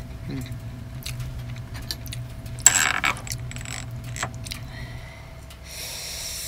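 Small clinks and scrapes of a metal knife against a glass jam jar as jam is scooped out, with one louder rattling clink about three seconds in and a scraping sound near the end.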